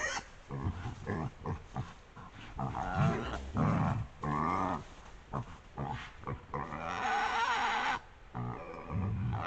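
Wild boar grunting and squealing in short irregular calls, with a long shrill squeal about seven seconds in. A young boar has been caught in a leg snare.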